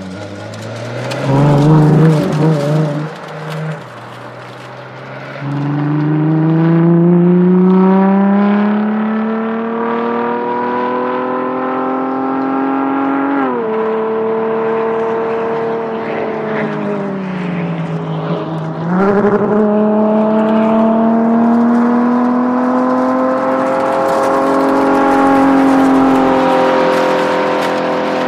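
Ferrari LaFerrari's V12 engine, revved in quick blips and then pulling hard under acceleration. Its pitch climbs steadily, drops sharply at an upshift about halfway through, sags briefly as the throttle eases, then climbs again.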